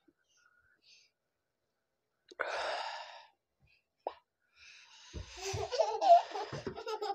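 A man blows out one long hissing breath, then huffs and pants with short voiced gasps in the second half, reacting to the burn of a super-hot Jolo chip.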